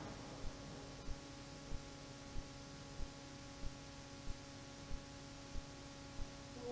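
Very quiet orchestral passage: a soft held chord with a soft, even low pulse about one and a half beats a second.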